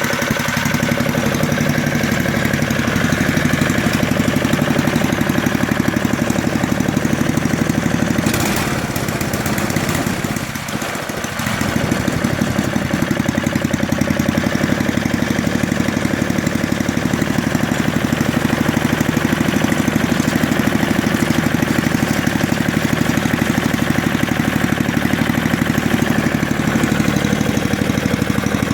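The five-horsepower Tecumseh four-stroke engine of an MTD Snow Flite 524 snow blower running steadily while it warms up after a cold start. There is a short knock a little past eight seconds in, and the engine note dips briefly about ten seconds in before it picks back up.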